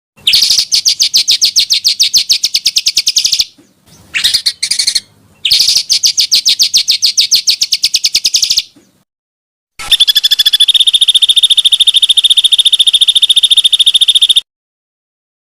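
Small songbird's long, rapid, high-pitched trilled rolls: three runs of about three to five seconds each, with a few short chirps between, each starting and cutting off abruptly as in an edited recording.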